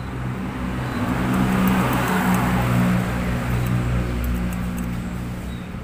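A motor vehicle passing by: a rushing engine noise that swells over the first two seconds or so and slowly fades, over a steady low hum.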